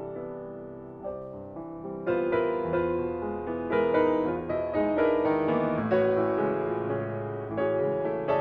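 Solo grand piano playing: a soft, fading passage, then louder, quick repeated notes and chords from about two seconds in.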